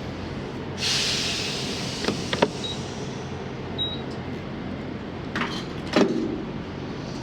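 Semi truck with its engine running steadily. About a second in there is a short burst of hissing air, and a few sharp clicks and knocks follow.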